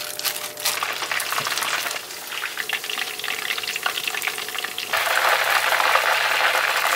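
Starch-coated chicken pieces deep-frying in a pan of hot oil: a dense crackling sizzle that grows louder about five seconds in.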